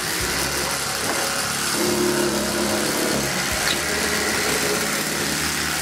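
A motor running steadily: a constant low hum with an even hiss over it.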